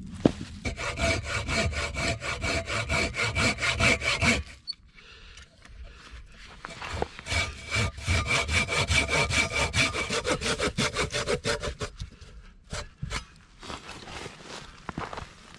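Hand saw cutting through a dry dead log in quick, rhythmic back-and-forth strokes, with a ringing note from the blade under them. There are two bouts of sawing with a short pause between, then a few scattered knocks near the end.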